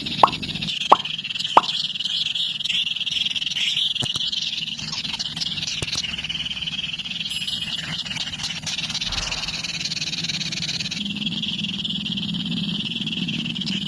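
A steady, high-pitched trilling chorus of calling animals, like frogs or insects, with three sharp clicks in the first two seconds.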